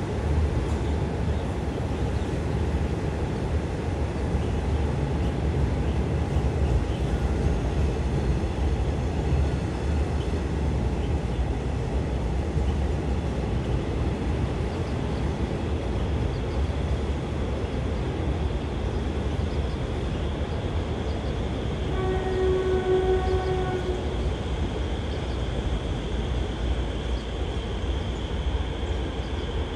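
State Railway of Thailand passenger train running past with a steady low rumble. A train horn sounds once for about two seconds, about two-thirds of the way through.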